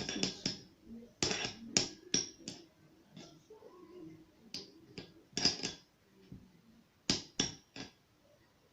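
A spoon clinking and scraping against a bowl in irregular runs of sharp taps while a yogurt-and-herb paste is stirred.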